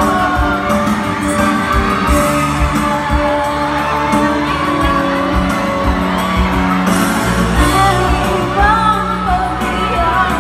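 A woman singing a pop song live into a microphone over backing music through a public address system in a large hall.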